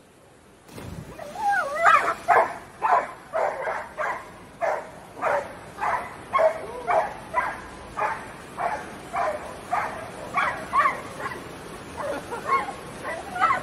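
Golden retriever barking and whining over and over, about two high, yelping barks a second with a whine bending through them. It starts a second or so in and keeps going.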